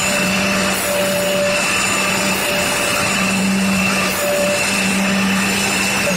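Angle grinder running steadily at full speed with a constant hum and high whine, while the carbide-tipped teeth of a circular saw blade are ground against its wheel for sharpening.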